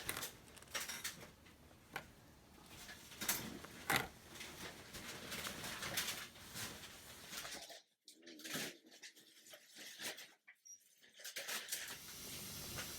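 Faint, irregular rustling strokes of a pet brush drawn through a cat's fur, with a few light clicks; the sound drops almost to nothing for about three seconds near the end.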